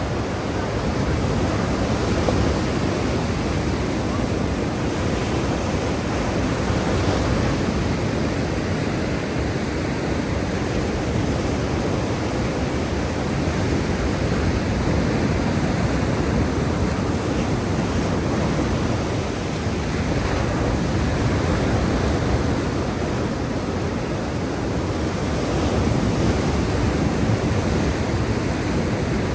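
Black Sea surf: a steady rush of waves, swelling and easing gently every few seconds.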